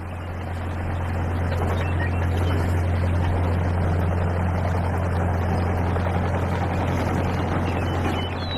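A small motor running steadily, a constant low drone at an even pitch with a rattly haze over it, fading slightly near the end.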